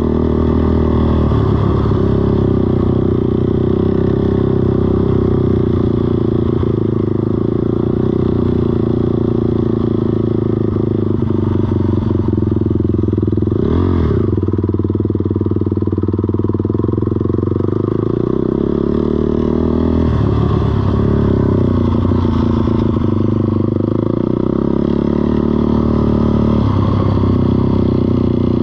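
ATV engine running steadily under part throttle, its pitch rising and falling a few times, with one brief knock about halfway through.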